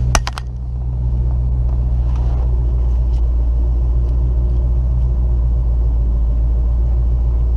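2005 Dodge Magnum engine idling steadily, shortly after being started, with one or two sharp clicks right at the start.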